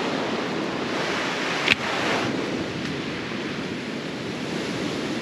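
Steady wash of ocean surf, with wind noise, and one sharp click nearly two seconds in.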